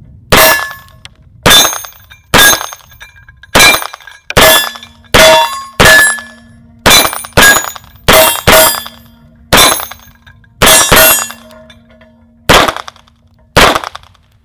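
Glock 17 MOS 9 mm pistol fired about sixteen times at a steady pace, with steel targets ringing with a clang after hits. From about a third of the way in, a low ring lingers beneath the shots.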